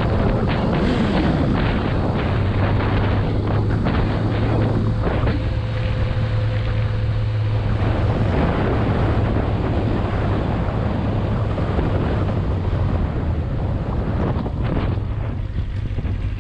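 Motorcycle riding at steady speed: wind buffeting the microphone over the engine's steady low drone. The wind noise eases a little near the end as the bike slows.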